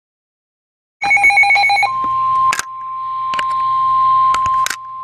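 NOAA Weather Radio alert: a short burst of pulsing digital tones, then the steady single-pitch 1050 Hz warning alarm tone, which signals that a warning message is about to be broadcast. A few sharp clicks sound over the tone.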